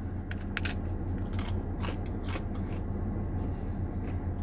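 Someone eating ice cream from a waffle cone at close range: irregular short clicks and crunches of biting and mouth sounds, over a steady low hum.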